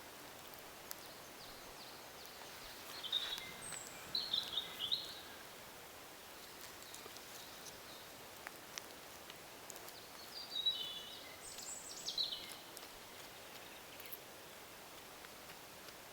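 A songbird singing two short, chirping phrases, a few seconds apart, over a steady outdoor hiss with a few faint clicks.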